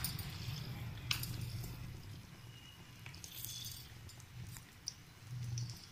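Potato patties being laid into a frying pan with a little oil: two light knocks, one at the start and one about a second in, and faint sizzling.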